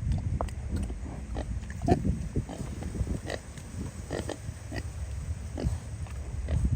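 Pigs grunting and drinking at a nipple waterer, with many short, irregular grunts and knocks over a low rumble.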